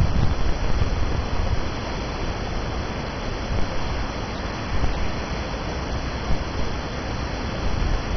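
Steady rushing noise of wind on the microphone, with gusty rumbling in the lows.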